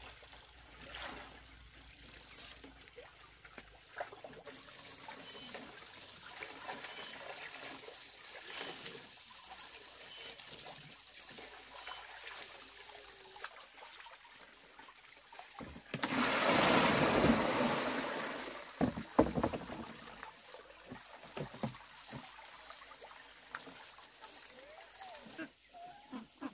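Clothes being hand-washed in plastic basins of water: water dripping and splashing as the clothes are wrung and rinsed, with a louder rush of water for about two seconds past the middle, then a few sharp splashes.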